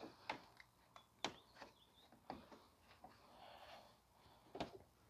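Faint, scattered clicks and knocks of a plastic front bumper cover being lifted and worked free of its clips.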